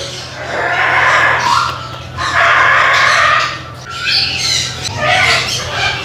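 Cockatoo squawking in about four long, harsh, raspy bursts: the begging calls of a cockatoo being hand-fed formula from a syringe.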